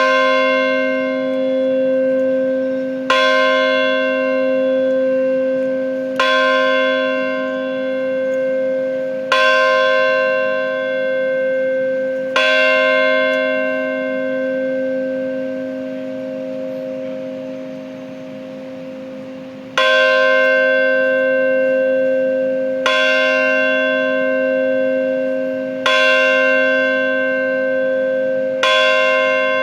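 Church bell of St Paul's Chapel tolled slowly, one stroke about every three seconds, each stroke ringing on with a deep hum under the next. Five strokes, a pause of about seven seconds, then four more strokes at the same pace.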